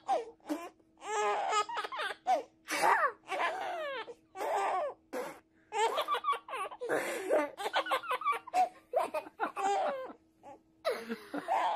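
A baby laughing in short high-pitched bursts, mixed with a young boy's giggles and babbling. A faint steady hum runs underneath and stops near the end.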